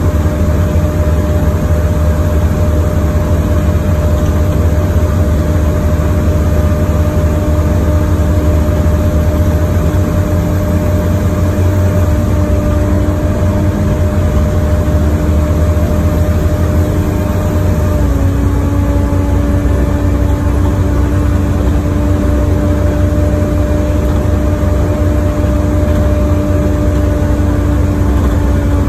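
Bus heard from inside the passenger cabin while driving: steady engine and road rumble with a held whine, whose pitch steps down slightly about two-thirds of the way through.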